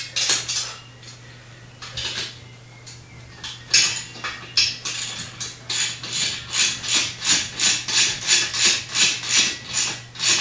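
Metal hand tools clink. Then, from about four seconds in, a 14 mm wrench ratchets in quick, even strokes, about three a second, as a bolt on the steel engine stand is run down.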